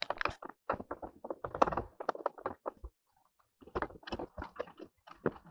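Irregular clicks, taps and scuffs of handling, with a short pause about three seconds in before the clicking starts again.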